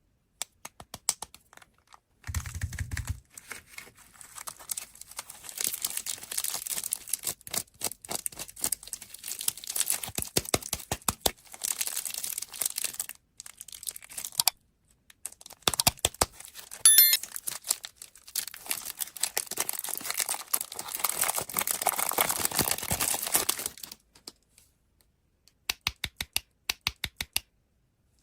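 Plastic candy wrappers crinkling and tearing open in two long stretches, with sharp clicking taps between them and rapid taps near the start and end.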